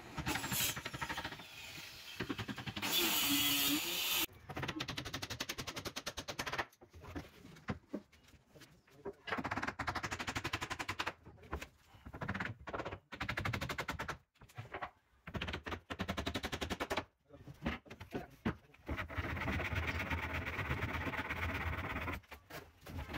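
Power tools working plywood. It opens with a handheld circular saw cutting a plywood board, strongest about three seconds in. After that comes a long run of rapid, evenly spaced clicks that stop and start again several times.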